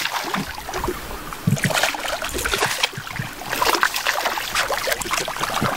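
A hooked sea bass fighting at the surface, thrashing and splashing the water in irregular sudden bursts.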